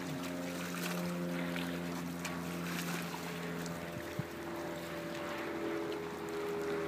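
Steady drone of a distant motorboat engine over wind and lapping water, the engine's pitch shifting about four seconds in. A single small knock just after that.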